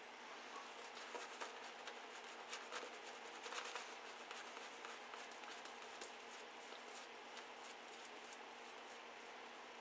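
Boar-bristle shaving brush working lather over a stubbled face, a faint scratchy swishing broken by small clicks, busiest in the first few seconds.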